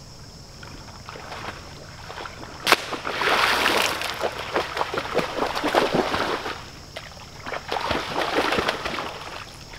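A big stick lands in a muddy pond with a sharp smack and splash about three seconds in. A Cane Corso puppy then wades and splashes through the shallow water after it, sloshing in two long spells. Crickets chirp steadily underneath.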